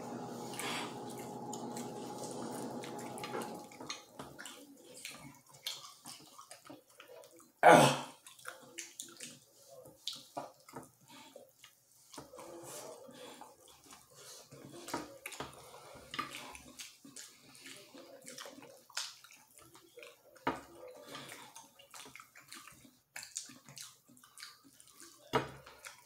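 Close-up wet chewing, lip-smacking and tearing of fried chicken eaten by hand: many short, irregular clicks and smacks. A steady hum with several tones stops a few seconds in, and one loud, sudden sound stands out about eight seconds in.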